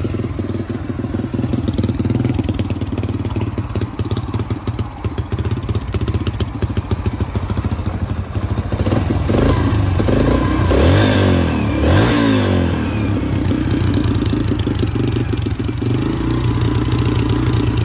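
Yamaha TT-R125's air-cooled single-cylinder four-stroke engine running at idle, the revs rising and falling a few times about halfway through. The idle runs high, which the owner puts down to the throttle cable.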